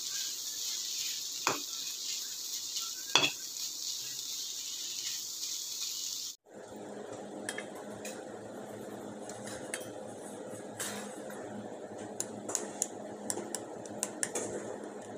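Chopped onions sizzling in oil in an iron kadai, with a steel spatula striking the pan twice. About six seconds in the sound changes to a lower steady noise with light clinks of a knife against a steel mixing bowl, most of them near the end.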